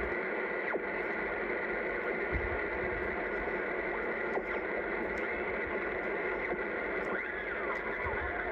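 Collins 75A-4 receiver giving a steady hiss of band noise through its speaker as its main tuning knob is turned, with faint whistles of signals sliding in pitch as the dial moves across them.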